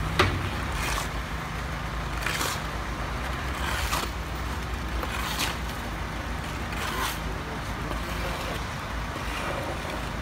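Roadworks: a steady low engine hum, with a short scraping swish about every second and a half as shovels work wet concrete, fading out after about seven seconds.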